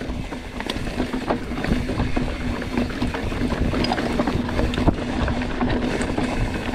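Mountain bike descending a rocky trail: tyres rolling and clattering over rock and the bike rattling, with rapid irregular clicks and knocks over a constant rumble of wind on the microphone.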